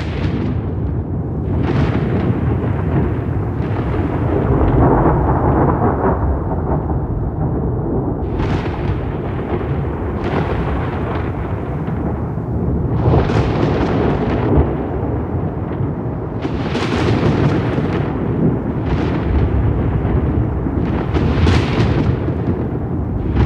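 Thunder rumbling without a break, with sharp crackling peals cutting through the low rumble every few seconds.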